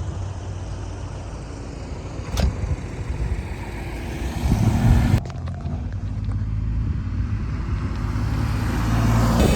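A vehicle's engine running steadily with a low rumble. It swells briefly about five seconds in and rises slowly near the end.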